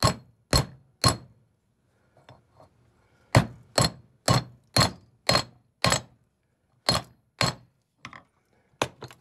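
Hammer blows on a flat steel bar, driving a rear wheel bearing into a 1959 Morris Minor hub: sharp metallic strikes about two a second, three, then a pause of about two seconds, then a run of six and two more, with a few lighter knocks near the end.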